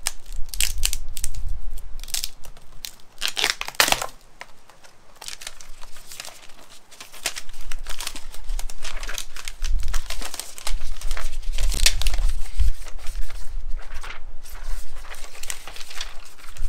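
Layers of a smashed iPad screen crinkling and tearing as they are pulled apart by hand, in a run of short sharp crackles with a quieter stretch in the middle.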